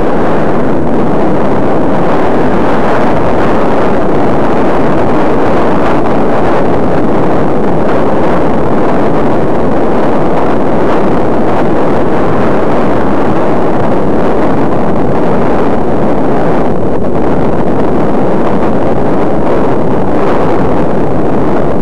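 Wind buffeting the microphone of an eyeglasses-mounted camera on a moving bicycle, a steady, loud rushing noise with no distinct events.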